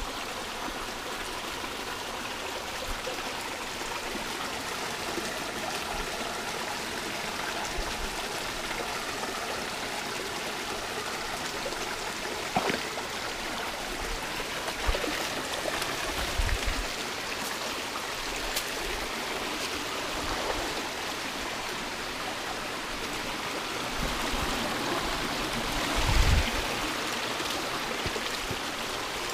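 Shallow mountain stream running over rocks: a steady rush and trickle of water. A few short thumps and knocks close by break through it, the loudest near the end.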